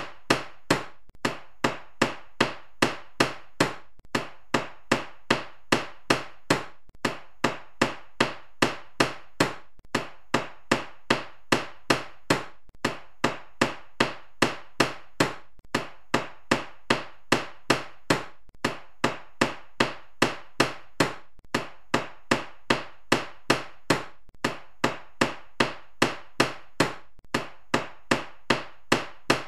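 Carpenter's hammer striking in steady repeated blows, about three a second, with a short break about every three seconds.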